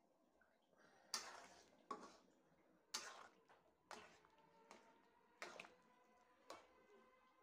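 A long-handled spoon stirring thin dal curry in a metal pot: about seven short scraping, sloshing strokes, roughly one a second.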